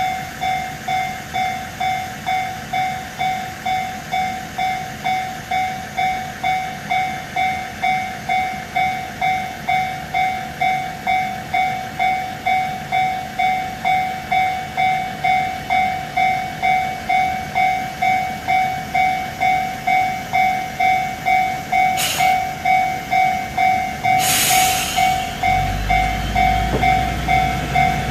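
Level crossing alarm bell ringing steadily, about two dings a second, while a TH2100-class diesel railcar idles at the station. About 22 seconds in there is a sharp click, a short burst of air hiss follows about two seconds later, and then the railcar's diesel engine revs up as it starts to pull away.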